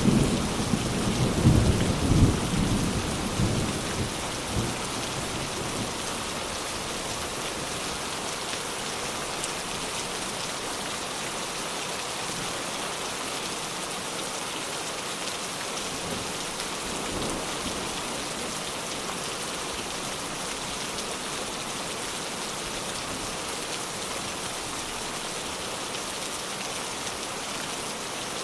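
Steady heavy rain with a thunder rumble that fades out over the first few seconds, leaving the rain alone.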